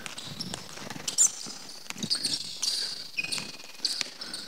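Basketball dribbled on a wooden court, with irregular dull bounces and the short high squeaks of sneakers as players cut and shuffle in defence.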